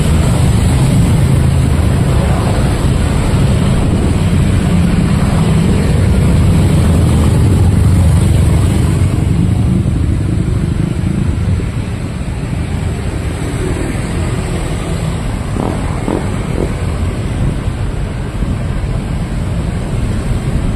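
Street traffic, motorcycles and cars passing, a steady rumble that is loudest in the first half and eases off after that.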